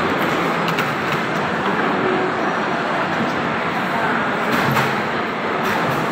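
Steady hubbub of a busy mall food court: many voices blending into a continuous murmur, with a few light clicks of tableware.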